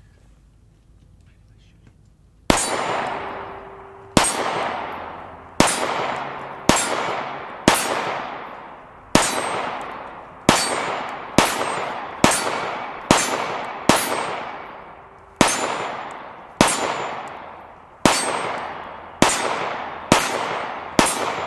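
Sphinx SDP Standard 9mm pistol fired one-handed at a steady slow-fire pace: about eighteen shots, roughly one a second, starting a couple of seconds in, each ringing away in a long echo.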